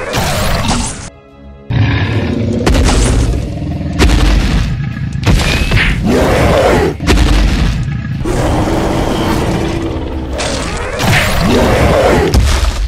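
Dubbed cartoon fight sound effects, a series of heavy booming hits, over action background music.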